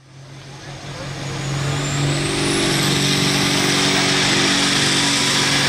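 Turbocharged International Harvester pulling tractor's diesel engine running hard at the start line, a thin turbocharger whistle climbing steadily in pitch as the turbo spools up. The sound fades in over the first two seconds.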